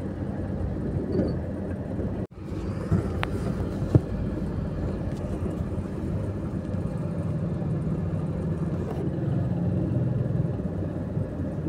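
A car engine running at low speed in slow traffic, heard from inside the cabin as a steady low hum and rumble. The sound drops out for a moment about two seconds in, and there is a single short knock about four seconds in.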